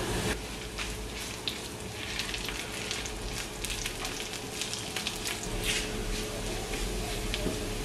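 Shallots, mustard and fennel seeds, curry leaves and dried red chillies frying in hot oil in a nonstick pan: a steady sizzle with small scattered pops as a silicone spatula stirs them.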